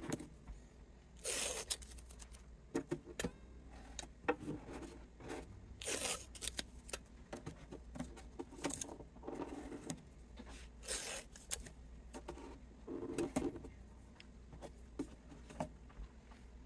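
Short, irregular scraping and tearing-like swishes mixed with scattered clicks and taps.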